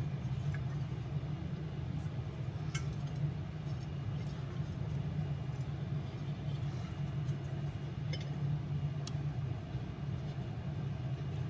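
Steady low mechanical hum, with a few faint clicks of metal heater parts being handled.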